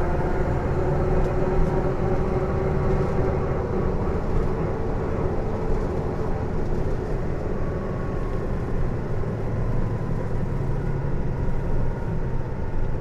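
Isuzu PJ-LV234L1 city bus under way, its drivetrain whine louder than the engine: an abnormal noise the owner puts down to the drivetrain. Several steady whine tones run over the engine and road noise, and over the second half a higher whine slowly falls in pitch.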